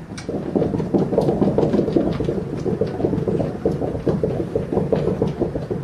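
Several people running in place while seated, their feet stamping quickly and unevenly on a carpeted floor: a steady dense patter of soft thuds.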